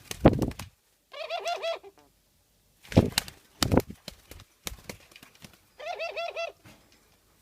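White dove giving an unusual warbling call, a quick run of wavering notes lasting about a second, twice: once about a second in and again near the end. Several sharp knocks come between the calls, the loudest near the start and around three seconds in.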